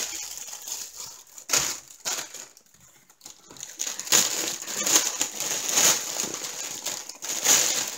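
Clear plastic bag crinkling and crackling as hands pull it open and off a stocking, in handled bursts with a short pause near the middle.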